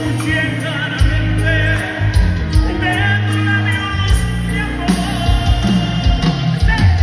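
Live norteño band music heard from the audience: a man singing lead over a bass line that moves between notes, with drum hits keeping time.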